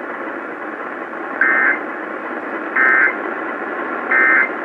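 Emergency Alert System end-of-message code on NOAA Weather Radio: three short two-tone digital data bursts, evenly spaced about a second and a half apart, over steady radio static hiss. The bursts mark the end of the alert broadcast.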